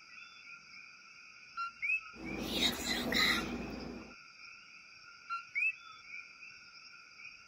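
Steady night chorus of frogs and insects, with two short two-note calls, a low note then a rising one, typical of the common coquí frog. Near the middle comes a couple of seconds of louder rustling.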